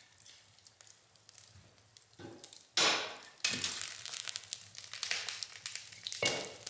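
Wood fire crackling in a small stove firebox, with sudden knocks, scrapes and rustling as the stove door is opened and the burning wood is handled and pushed in. The first two seconds are faint; the noises start about two seconds in, the loudest near three seconds, with another about six seconds in.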